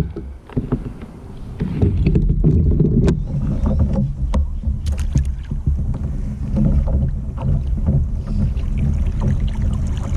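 Pedal kayak moving through the water: a steady low rumble of hull and drive, with scattered light clicks and knocks. It builds up over the first two seconds.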